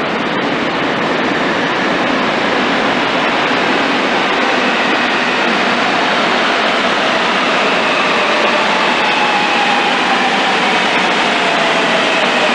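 An electric subway train pulling into an underground station: steady loud wheel-and-rail rumble, with a motor whine that slowly falls in pitch as the train slows.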